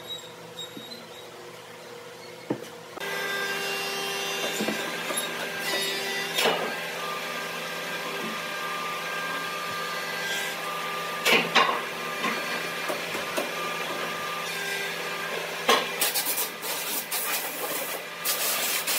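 Pen scratching across a wooden block as curved lines are traced along a curved pine board used as a template, with the board knocking against the block now and then and a run of scratchy strokes near the end. A steady hum with several held tones starts about three seconds in.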